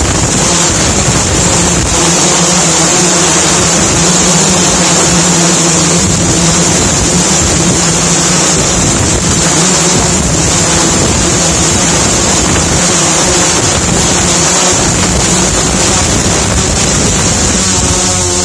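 A drone's motors and propellers running steadily in flight, recorded from on board: a loud, even hum with a high whine and wind noise on the microphone.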